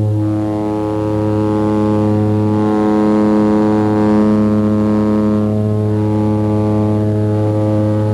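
Airliner's engines droning steadily, heard from inside the cockpit on the takeoff roll, with a rush of noise swelling up in the middle and easing off.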